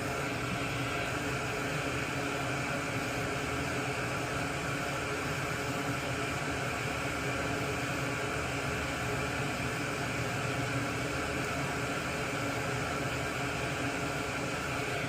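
Steady whirring hum and hiss of a fan or small motor running evenly throughout.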